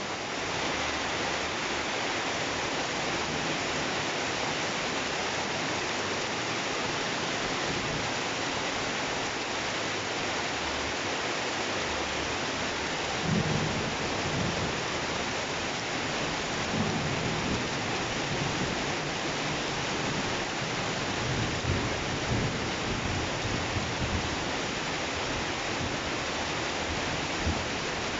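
Heavy, steady rain in a thunderstorm, with low rumbles of thunder swelling up several times from about halfway in.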